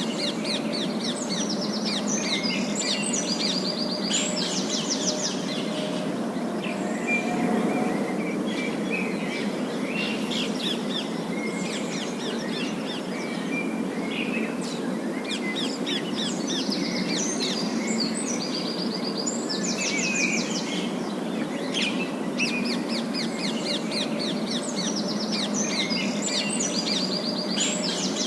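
Parakeets chirping and trilling in rapid bouts that come about every ten seconds, over a steady low background rumble.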